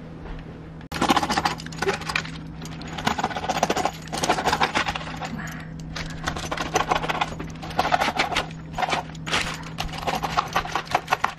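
Rolling pizza cutter crunching through a crisp-baked pizza crust on parchment paper. It makes a dense crackle in about six strokes, over a low steady hum.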